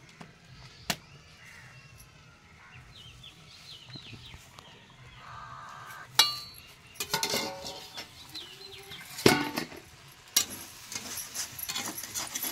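Steel cooking utensils clinking and clanking: a single click, then from about six seconds in a run of ringing metal clinks and two loud knocks as pots and a metal ladle are handled, followed near the end by quick repeated strokes of the ladle stirring vegetables in a kadai.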